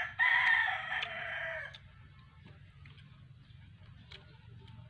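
A rooster crowing once, a single call of just under two seconds that is loudest at the start and trails off at the end.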